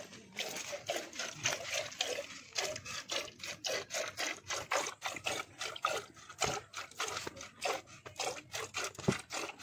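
Cow being milked by hand: rhythmic squirts of milk from alternating teats hissing into a metal pail.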